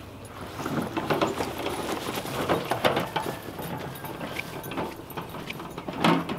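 Wheelbarrow rattling and clattering as it is pushed over grassy ground: irregular clicks and knocks, with a louder knock near the end.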